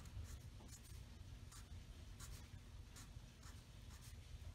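Sharpie permanent marker drawing short strokes on paper, a faint string of quick scratchy marks one after another.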